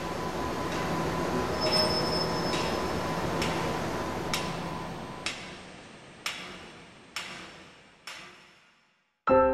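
A film soundtrack's ambient drone, a low rumble with a few held tones, swells and then slowly fades away. Over it run sharp, evenly spaced ticks about once a second, fading with it. After a brief silence a piano comes in just at the end.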